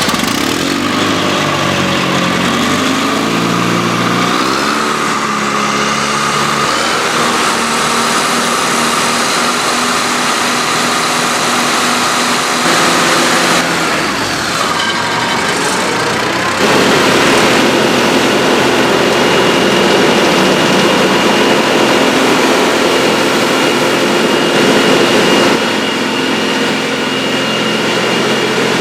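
John Deere 4039 110 hp four-cylinder turbocharged diesel of a Haybuster HD-8 tub grinder running, its speed climbing in steps over the first several seconds and then holding steady. It gets a step louder about two-thirds of the way through.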